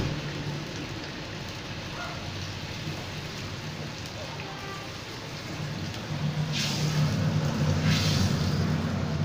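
Chicken curry simmering in a wok, a steady bubbling hiss, as coconut milk is poured in from a cup; it grows louder about six and a half seconds in.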